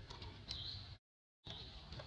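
Short, high, squeaky calls of a baby macaque: one a quarter of the way in and another just after a brief total dropout to silence in the middle.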